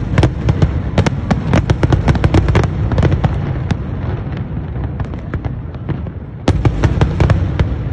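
Fireworks display: a rapid run of sharp bangs and crackles over a low rumble, thinning out in the middle, then a loud bang about six and a half seconds in sets off another dense volley of crackles.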